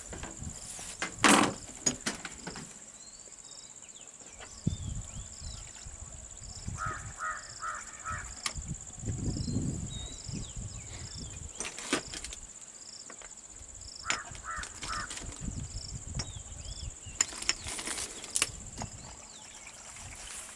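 Insects droning steadily at a high pitch, with a faint chirp about once a second, under scattered sharp clicks and knocks from handling syringes, vials and boxes of medical supplies; the loudest click comes about a second in. Twice a short run of four quick notes sounds.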